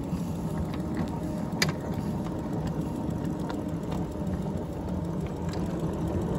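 A 5-inch gauge ride-on miniature locomotive, modelled on a North British diesel shunter, running along its track: a steady low mechanical hum and rumble from its drive and wheels, with scattered clicks from the wheels on the rails, the sharpest about one and a half seconds in.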